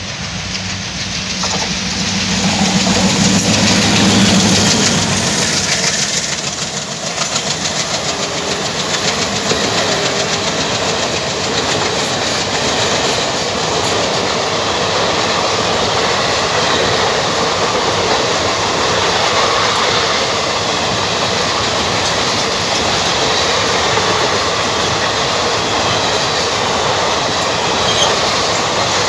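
Twin WDG3A diesel-electric locomotives, ALCO-design 16-cylinder engines, passing close with a deep engine hum that is loudest in the first few seconds, then a long rake of passenger coaches rolling by with steady wheel noise and clickety-clack over the rail joints.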